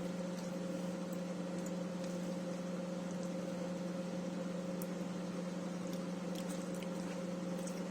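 Steady low hum of a kitchen appliance, with a few faint light clicks.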